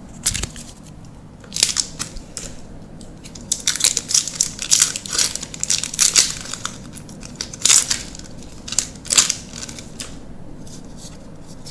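Magic: The Gathering booster-pack wrapper crinkling and tearing as it is pulled open by hand: a run of sharp, crackly rustles that dies down near the end.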